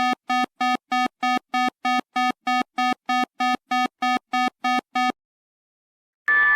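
Emergency alert tone played in reverse: even electronic beeps, about three a second, that stop about five seconds in. After about a second of silence a steady electronic tone of several notes starts near the end.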